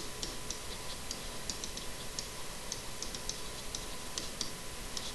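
Light, irregular clicks of a stylus tapping on a tablet screen during handwriting, about four a second, over a steady hiss.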